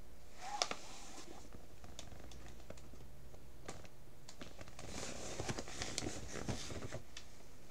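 Faint rustling and crinkling with scattered sharp clicks, over a steady low hum; the rustling is strongest briefly about half a second in and again from about five to seven seconds.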